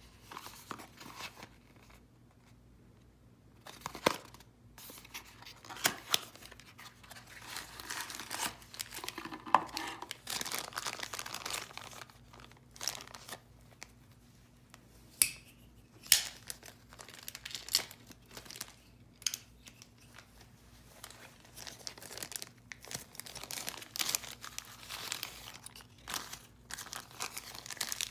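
Handling a small cardboard box and a clear plastic bag: irregular crinkling and rustling of the plastic, with a few sharp clicks and taps.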